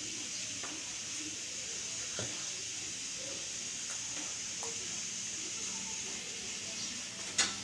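Steady background hiss with a few faint ticks and taps as a kitchen knife works through a raw chicken wing joint on a plastic cutting board, and one sharper click near the end.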